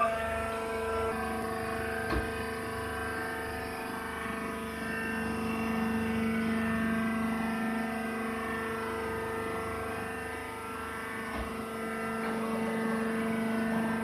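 Rice husk baler's electric motor and hydraulic pump running with a steady hum, with a light clank about two seconds in.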